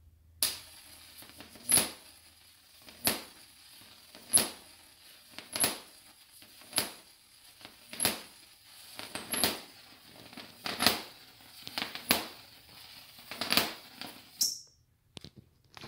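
Jacob's ladder arc, fed by a homemade high-voltage ZVS driver, buzzing and crackling as it climbs the rods, with a sharp crack about every 1.3 seconds as each arc breaks off the top and a new one strikes at the bottom. It cuts off suddenly near the end as the driver is switched off.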